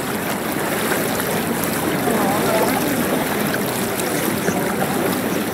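Feet wading through ankle-deep floodwater, a steady sloshing and splashing, with faint voices in the background.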